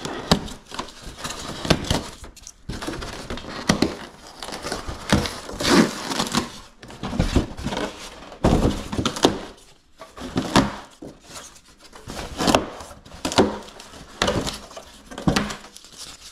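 Polystyrene foam packing padding and a cardboard box being handled and worked by hand: irregular rustling, scraping and light knocks.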